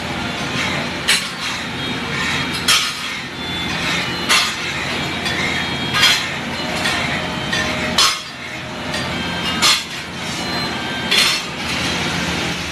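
Metal cooking tool clanking against a large iron tawa: seven sharp clanks, about one every second and a half, over a steady background noise.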